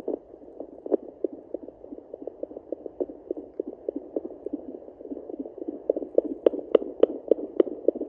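Handheld Sonoline B fetal Doppler's speaker playing a rapid, pulsing whoosh of heartbeats picked up through a pregnant Yorkshire terrier's belly, with a few sharper, louder beats about six to seven seconds in. Its readout sits near 115 beats a minute and reaches 210 near the end, a rate typical of an unborn puppy's heart.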